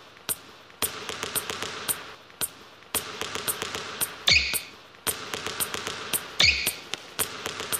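Basketball bouncing on a hard floor: many light taps, and two deeper bounces about four and six and a half seconds in, each with a short high squeak.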